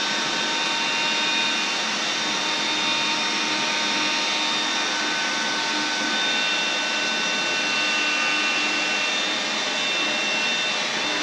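Small handheld vacuum cleaner running steadily, a steady rushing noise with several thin motor whines over it, as it sucks up drilled-out epoxy resin chips from the table surface.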